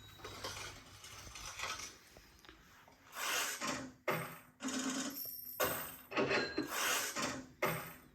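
Music playing, soft for the first three seconds, then loud strongly accented passages with sharp attacks about once a second.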